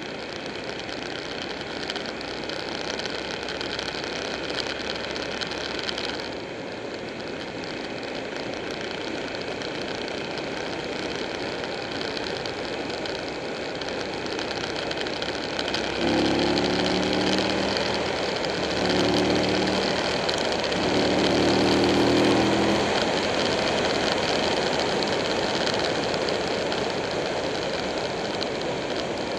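Buell 1125R sport bike's V-twin engine running at road speed under a steady rush of wind and road noise. About halfway through, a louder, steady-pitched engine tone comes in three spells of a couple of seconds each.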